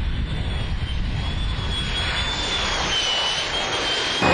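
F-35 Lightning II fighter jet's Pratt & Whitney F135 engine running at high power on takeoff: a steady rush of jet noise with a high whine that wavers slightly in pitch. Near the end the sound jumps suddenly louder, and the whine sits lower.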